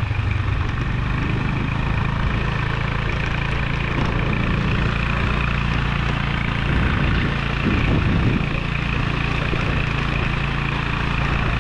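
A vehicle's engine running steadily as it drives along, a low even drone with a brief swell about eight seconds in.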